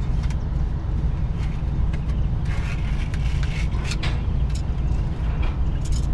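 Hands working a truck's rubber air line at the front axle, making a few short clicks and rustles, over a steady low rumble.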